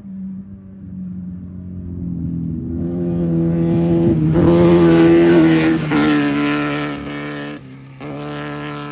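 Off-road race vehicle's engine running hard as it approaches and passes, growing louder to a peak about five seconds in, then falling in pitch and fading. The engine note picks up again briefly near the end.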